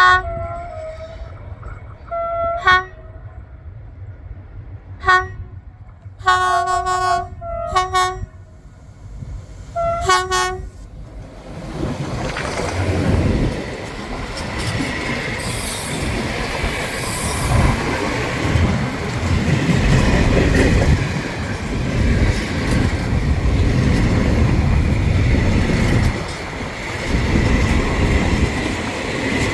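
Freight train hauled by a TCDD DE24000-class diesel locomotive: the air horn sounds a chord in about six blasts, mostly short with one longer blast, over the first eleven seconds. The train then passes close by, its wheels and wagons rumbling and clattering over the rail joints.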